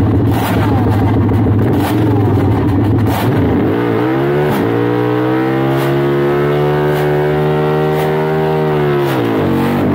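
Racing engine running rough with occasional sharp pops, then about four seconds in it revs up and holds a steady high note for about four seconds before the revs drop near the end.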